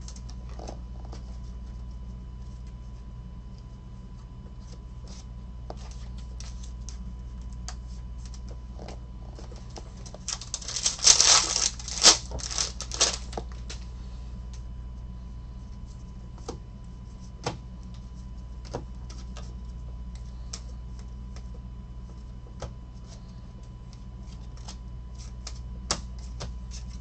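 Trading cards being handled and flicked through one by one, their edges making light clicks and taps, with a louder flurry of rustling and snapping about ten seconds in. A steady low hum runs underneath.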